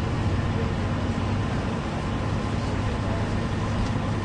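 Steady low vehicle drone, a constant hum under an even wash of noise, with no change in pitch or level.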